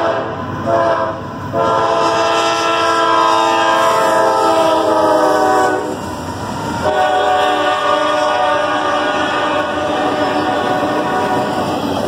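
CSX freight locomotive's multi-chime air horn sounding for a grade crossing: two short blasts, a long blast of about four seconds, a brief break about six seconds in, then another long blast that carries on. Underneath is the steady rumble of the train passing.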